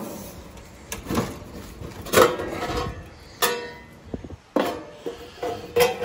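Sheet-metal electrical access panel of a central air conditioner's condensing unit being taken off and handled: a series of metallic knocks and clanks, about one a second, some ringing briefly.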